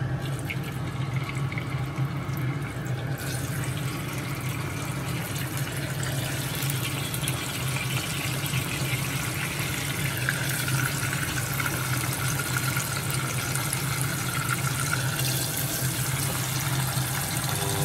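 Tuna slices sizzling as they fry in hot oil in a pan; the sizzle fills out about three seconds in, then runs on steadily over a steady low hum.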